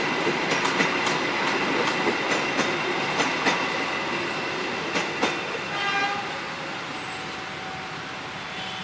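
Economy-class passenger coaches of the KA Menoreh train rolling past, their wheels clicking irregularly over rail joints with a thin squeal. A short squeal comes about six seconds in, and the noise then fades as the last coach moves off toward the station stop.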